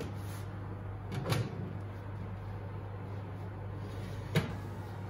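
Oven rack handling: a short clatter about a second in as a silicone cake pan is set on the metal wire rack, then a sharp knock near the end as the rack is pushed back into the oven. A steady low hum runs underneath.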